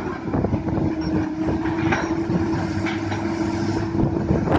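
Komatsu PC200 hydraulic excavator digging: the diesel engine runs under load with a steady whine over its rumble, and a few knocks come from the bucket working in the rocky trench.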